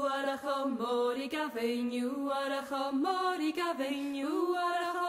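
A voice singing a slow folk song in a non-English language, probably Gaelic, on long held notes that step from one pitch to the next, as background music.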